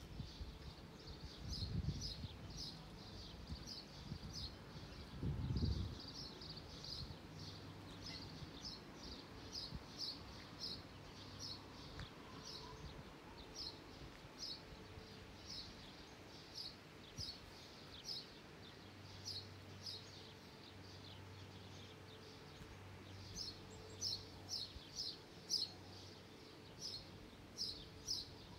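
A small bird chirping in quick runs of short, evenly repeated high notes, pausing between runs. A faint low hum comes and goes, with two low thumps in the first few seconds.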